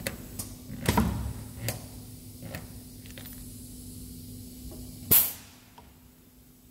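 Balestrini TEAM automatic furniture-joint machine with a steady hum, a series of clicks and knocks from its controls and mechanism, the strongest about a second in. About five seconds in comes a short, loud hiss, after which the machine goes quieter.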